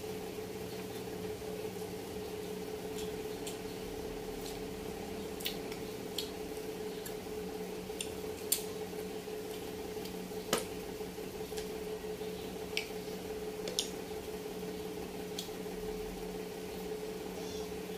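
Eating by hand and chewing: soft wet squishing, with a few sharp clicks scattered through the middle, the loudest two about halfway, over a steady hum.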